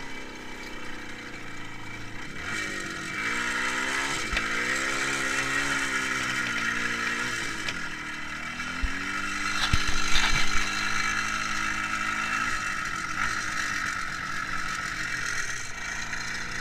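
IZh Jupiter-5 motorcycle's two-stroke twin-cylinder engine running, its speed rising and falling for several seconds and then holding steady, with a few sharp knocks about ten seconds in.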